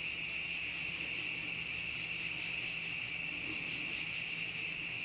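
A steady chorus of crickets chirping.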